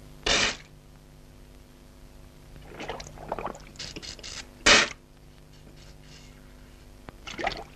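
Cartoon water sound effects from an elephant's trunk in a bathtub: two short, loud splashy whooshes, about a third of a second in and just before five seconds, with softer splashing between them and again near the end, over a faint steady hum.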